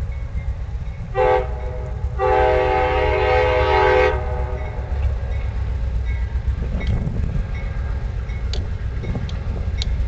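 A horn sounding twice, a short blast and then a longer one of about two seconds, each a chord of several tones, over a steady low rumble.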